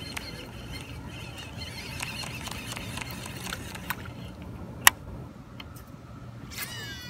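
Shimano Scorpion DC baitcasting reel's digital brake whining faintly as the spool free-spins through a cast on brake setting 3 with no thumb on the spool. The whine fades out after about four seconds. About a second later comes one sharp click as the reel is engaged, and a brief cluster of high ringing tones begins near the end.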